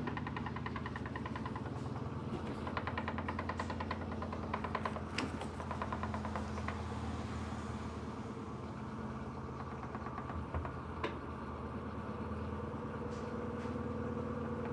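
Electrolux LED14 washing machine spinning: a steady motor and drum hum with a fast, even rattle, and a few short knocks about five and eleven seconds in.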